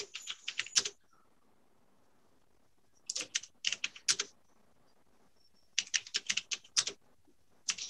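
Typing on a computer keyboard in short bursts of keystrokes with pauses between: a burst at the start, another about three seconds in, and another about six seconds in.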